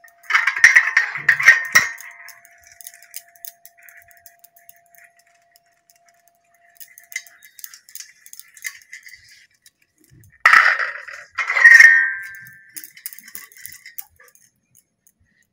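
Stainless steel idli plates clattering and clinking against each other and the cooker stand as they are handled, in two loud bursts with a short metallic ring. The first comes just after the start and the second about ten seconds in, with lighter clinks between.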